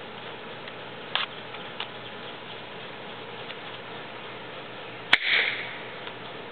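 A handheld party popper going off about five seconds in: one sharp pop followed by a short hiss. A couple of light clicks come earlier.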